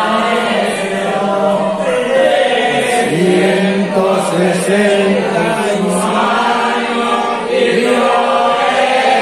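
Church congregation singing a hymn together, many voices at once in a steady, continuous chorus.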